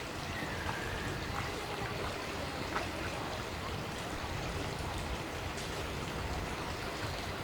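Steady outdoor rushing noise, water-like, with a few faint short clicks about one, one and a half, and three seconds in.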